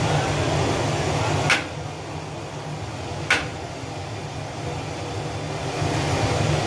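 A steady low machine hum, with two sharp clicks about two seconds apart, the first about one and a half seconds in.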